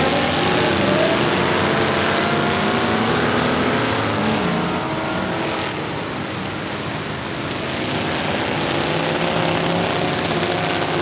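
Engines of several race cars and pickup trucks running together around a dirt oval, their different pitches overlapping and rising and falling as they rev through the turns.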